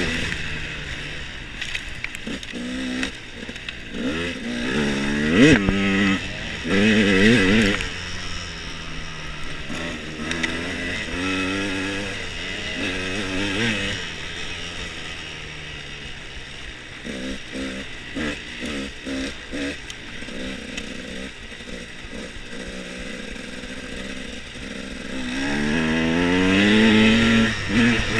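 Off-road dirt bike engine under way, revving up and dropping back again and again as the throttle is opened and closed, with a run of quick short blips in the middle and a long, strong climb in revs near the end.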